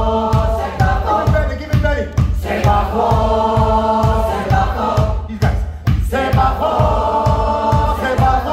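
Live band music: several voices singing a repeated phrase in harmony over a steady drumbeat, with violin.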